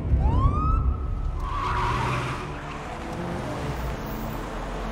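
Police cars arriving: a short siren whoop rising in pitch early in the first second, then tyres skidding briefly about two seconds in, over a steady low engine rumble.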